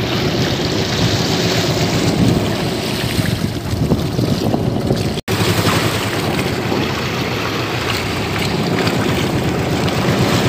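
Small boat under way, its engine running steadily while water rushes and splashes along the hull and wind buffets the microphone. The sound breaks off for an instant about halfway through.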